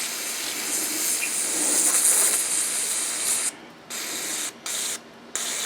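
Aerosol spray can hissing as it is sprayed onto a gunk-clogged carburetor fuel screen to clean it: one long blast of about three and a half seconds, then three short squirts.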